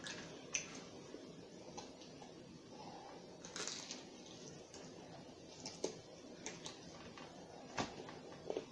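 Eating sounds of crunchy fried chicken: the crisp coating crackling as pieces are torn off by hand and bitten, with chewing and mouth clicks in between. There are scattered short sharp crackles, a longer rustling crunch about three and a half seconds in, and a few louder clicks near the end.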